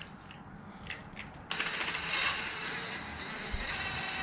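Fast, continuous metallic clicking of a hand ratchet turning the drive bolt of an exhaust pipe expander to spread its jaws, starting about a second and a half in after a few separate clicks.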